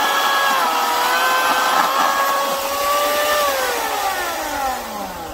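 Homelite 12-amp corded electric chainsaw cutting through a log, its motor giving a steady whine that dips slightly in pitch as the chain takes the load. About three and a half seconds in the trigger is released and the motor winds down with a steadily falling pitch.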